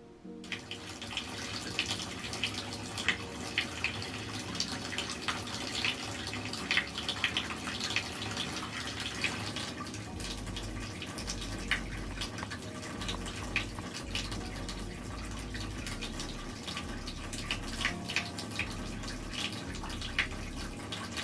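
Water running from a tap into a bathtub: a steady splashing with many sharp drips and plinks, starting about half a second in.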